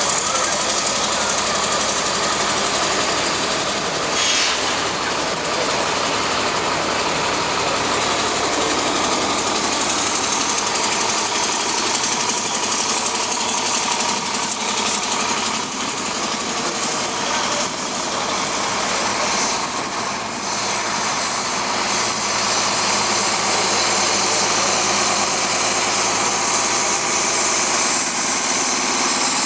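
Shuttle bus engine running steadily close by, a continuous engine hum.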